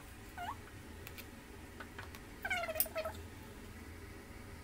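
A cat meowing twice: a short rising call about half a second in, then a longer wavering meow about two and a half seconds in. Light clicks of a knife and fork against a plastic tray.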